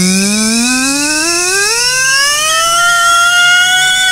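Edited sound effect: a clipped vocal 't' looped faster and faster until it merges into a buzzing tone. The tone rises steadily in pitch, levels off near the end, then cuts off abruptly.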